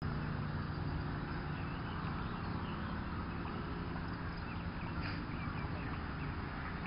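A steady low mechanical hum, like a distant engine, with small birds chirping here and there over it.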